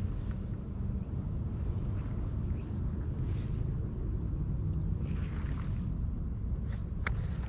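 Insects trilling in one steady high tone over a constant low rumble, with a single small click near the end.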